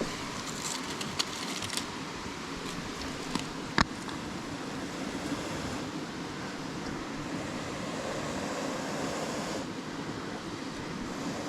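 Steady rushing of flowing river water, with a few sharp snaps or clicks; the loudest comes just under four seconds in.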